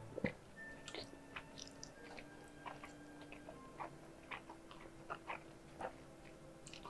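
Close-miked chewing of jjajangmyeon noodles in black bean sauce: quiet, with short wet mouth clicks scattered through, one or two a second.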